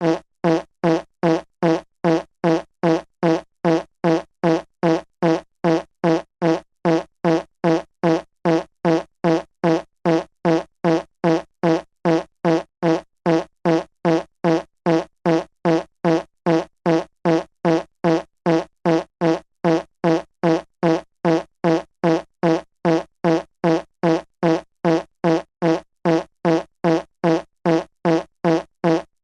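Fart sound effect: the same short, buzzy fart blast looped over and over, about two a second, each one identical.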